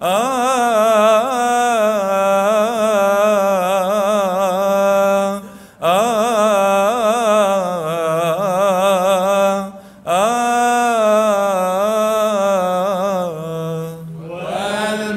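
A man's solo voice chanting the closing doxology of a Coptic Orthodox Gospel reading in Arabic, in long, melismatic phrases with wavering ornaments. He breaks for breath about six and ten seconds in, and a new phrase begins near the end.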